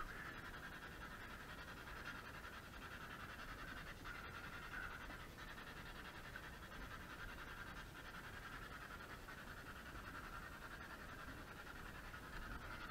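Radio left running with a faint, steady static hiss, no voices coming through.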